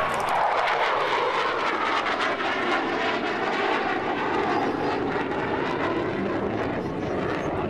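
F-16 fighter jet flying past, the noise of its single jet engine loud and steady, its pitch sinking slowly as it moves away.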